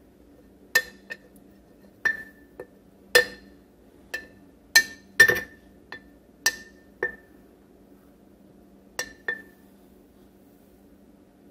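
A spoon clinking against the inside of a glass jar as thick sourdough starter is stirred: about fourteen sharp clinks at uneven intervals, each with a brief glassy ring, stopping a couple of seconds before the end.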